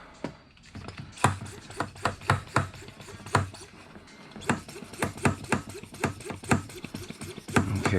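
Irregular sharp clicks and taps, about two a second, from a brake pressure bleeder and its fittings being handled.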